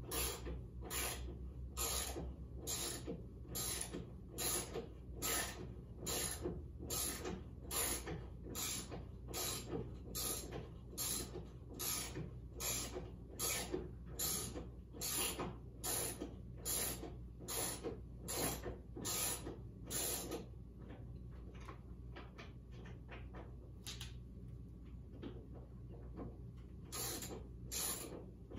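Hand ratchet wrench backing out bolts on a Jeep Wrangler's windshield pillar: the pawl clicks in a steady rhythm of about two strokes a second. The clicking stops about twenty seconds in and starts again near the end.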